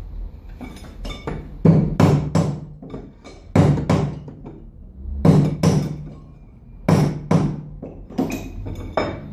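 Hammer blows on steel, about a dozen strikes mostly in quick pairs, each with a short metallic ring, as in knocking a wheel bearing out of its hub.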